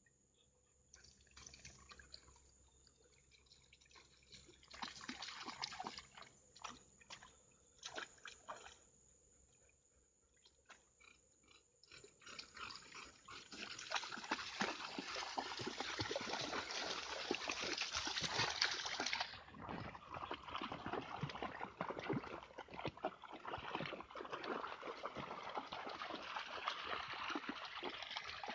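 Dogs wading and splashing through water: scattered sloshes at first, then continuous splashing from about twelve seconds in.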